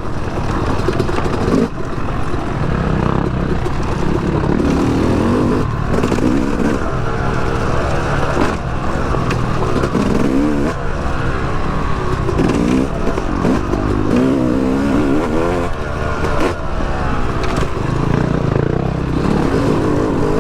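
Yamaha YZ250X two-stroke dirt bike engine revving up and down over and over as it is ridden over rough trail, with a few knocks and clatter from the bike, heard through a microphone inside the rider's helmet.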